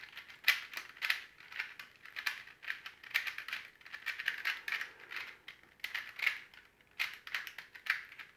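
Plastic layers of a twisty puzzle cube clicking and clacking as it is turned by hand in quick, irregular bursts of moves. This puzzle has no center and turns stiffly.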